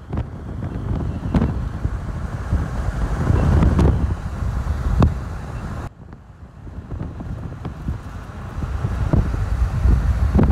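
Wind buffeting the microphone as a low, rumbling roar, with a few brief knocks. The noise drops suddenly about six seconds in, then builds again.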